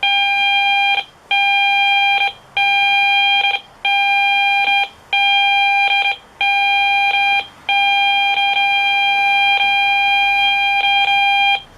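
RF meter's speaker buzzing a steady, loud pitched tone as it picks up a phone's Bluetooth scan, in about six one-second stretches with short breaks between them, then one longer stretch of about four seconds that cuts off near the end.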